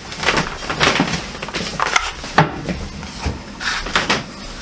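Handling sounds of cardboard vacuum-tube boxes and a glass tube being set down and shuffled on a towel-covered table: a string of irregular light knocks, taps and rustles.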